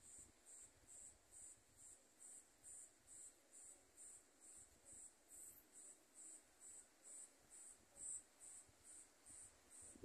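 A cricket chirping faintly in an even, high-pitched rhythm of about two and a half chirps a second.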